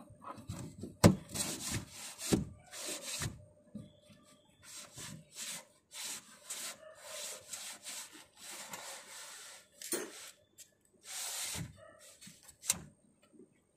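Orange plastic trim tool rubbing and scraping in repeated irregular strokes along the rubber window seal of an Audi A4 B8 rear door, with a sharp click about a second in and another near the end.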